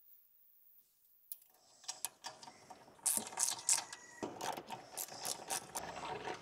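Ratchet wrench clicking as the nuts holding the diesel pre-filter module are undone: nearly quiet at first, then a quick run of clicks that grows faster and louder about three seconds in.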